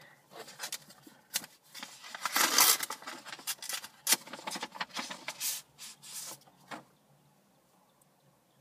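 A paper envelope being torn open and handled: crackling, rustling paper with a longer tear about two to three seconds in. The rustling stops about seven seconds in.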